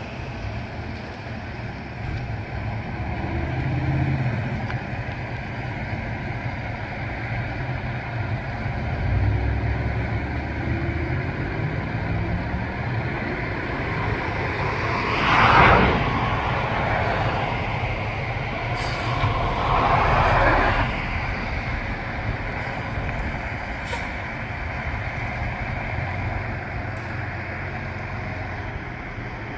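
Spartan Metro Star fire engine idling with a steady low diesel rumble. About halfway through come two loud hisses of air from its air brakes, a few seconds apart.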